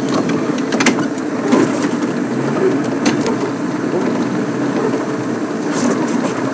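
Open safari game-drive vehicle's engine running as it drives off along a dirt track, with a couple of short knocks about a second and three seconds in.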